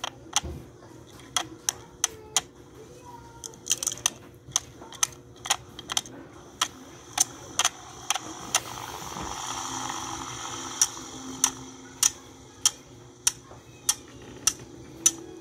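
Clock ticking: sharp, regular ticks a little under two a second, with a soft hiss that swells and fades in the middle.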